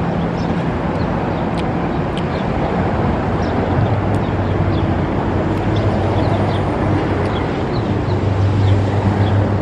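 Steady street traffic noise, with a vehicle engine's low hum swelling near the end, and small birds chirping now and then.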